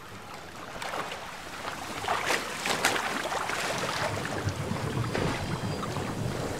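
Liquid splashing and churning in a stone tank as a man is forced into it and struggles, growing louder about two seconds in.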